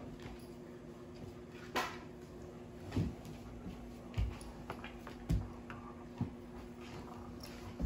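Dogs moving about on a hardwood floor: scattered light thumps and clicks of paws and claws, irregular and about seven in all, over a faint steady hum.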